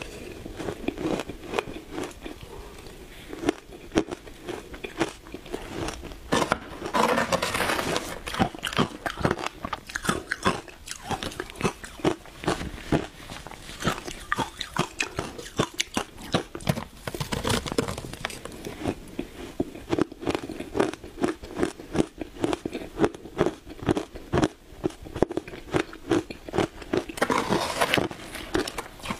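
Shaved ice crunching and cracking between the teeth as it is bitten and chewed, a dense run of irregular crunches several times a second, heard close up.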